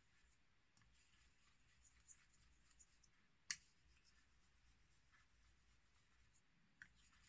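Faint scratching of a Dovo 98 straight razor's blade worked in small circles on a wet whetstone during bevel setting, with a sharp click about three and a half seconds in and a smaller one near the end.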